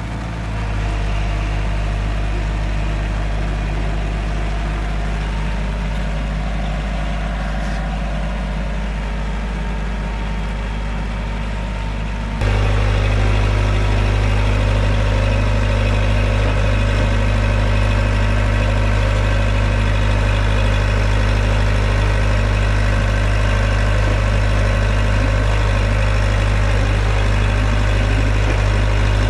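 Excavator diesel engine running steadily with a deep hum, turning suddenly louder about twelve seconds in.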